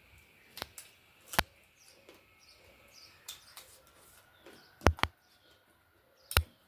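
Sharp clicks and taps from eating at a meal, about six in all, the loudest a close pair about five seconds in and another single one near the end.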